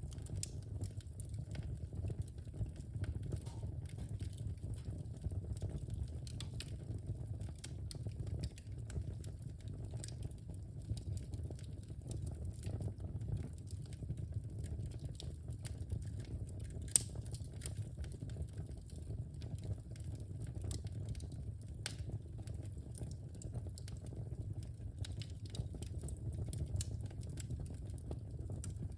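Wood fire in a fireplace crackling, with scattered sharp pops over a steady low rumble of the flames. One pop stands out, louder, a little past halfway.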